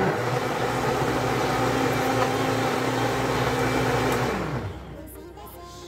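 Electric countertop blender blending juice: its motor spins up right at the start, runs at a steady pitch, then is switched off about four seconds in and winds down to a stop.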